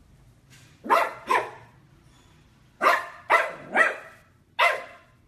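A dog barking six times in short groups: two barks about a second in, three more a little before the middle, and one near the end.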